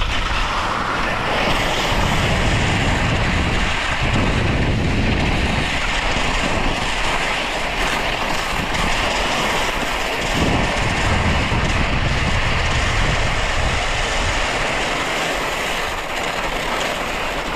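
Skis sliding and scraping over snow on a downhill run: a steady, loud rushing noise with a deep rumble underneath.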